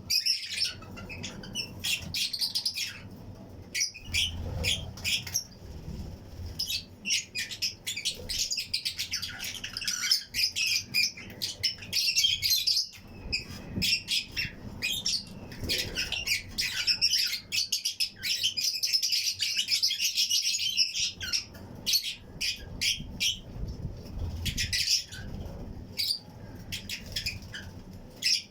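Colony of Fischer's and lutino lovebirds chirping and squawking together in a flight cage, a dense, near-continuous chatter of high, rapid calls.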